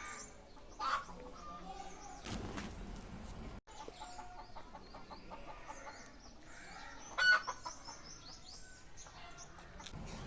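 Birds calling, many short chirps and calls throughout, with two louder sharp sounds, one about a second in and a stronger one a little past seven seconds.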